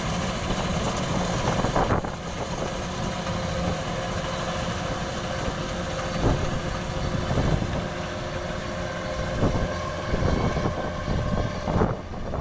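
Kubota DC-93 combine harvester running steadily under load, its engine and threshing machinery making a continuous mechanical drone with occasional brief knocks.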